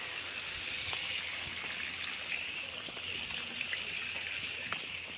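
Water running through a garden irrigation pipe and its hoses, a steady trickling hiss, with a few faint clicks.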